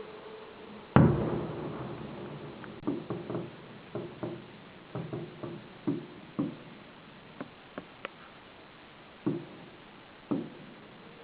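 Fireworks going off: one loud bang about a second in that fades slowly, then a run of smaller, sharper bangs and pops spaced irregularly through the rest.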